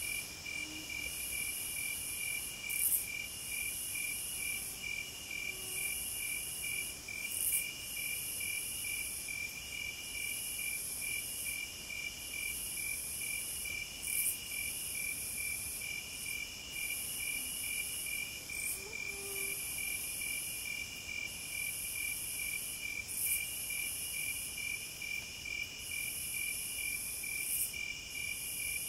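Insects chirping steadily: a fast, even pulsing trill with longer chirps over it that break off every second or two.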